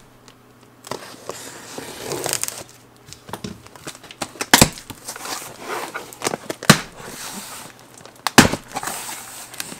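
Cardboard box being opened by hand: scraping, rustling and tearing of the cardboard, broken by three loud sharp cracks, about four and a half, six and a half and eight and a half seconds in.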